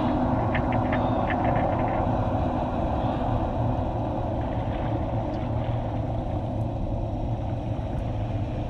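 Steady low mechanical hum of a submersible's cabin machinery, with a short run of quick clicks in the first two seconds.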